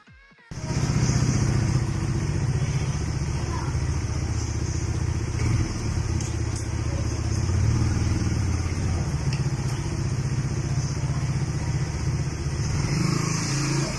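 Suzuki Raider 150 Fi motorcycle's single-cylinder four-stroke engine running steadily at idle. It comes in abruptly about half a second in.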